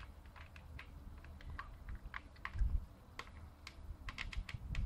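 Small scattered clicks of fingers working the plastic-bodied FS-103 1911-style airsoft pistol, pressing its stiff slide stop out of the frame, with a dull handling bump about two and a half seconds in.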